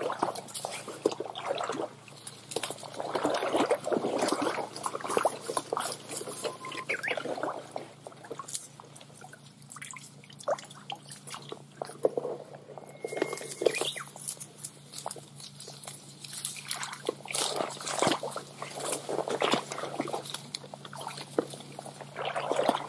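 Shallow creek water sloshing and splashing in irregular bursts, as a hand net is worked through the water and streamside weeds during gasa net fishing.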